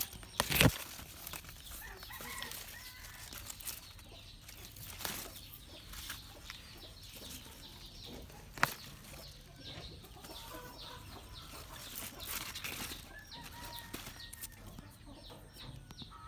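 Radish leaves rustling and snapping as white radishes are pulled from the soil by hand, with a sharp snap about half a second in and another about eight and a half seconds in. Chickens cluck in the background, more often near the end.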